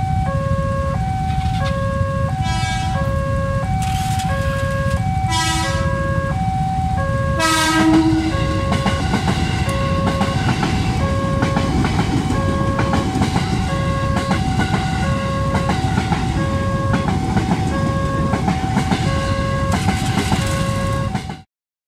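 Level-crossing warning bell sounding a steady, repeating two-note electronic chime while a KRL commuter electric train passes slowly across, with a low rumble underneath. Short horn blasts come about 3 and 5½ seconds in, and the loudest comes about 8 seconds in. The sound cuts off suddenly near the end.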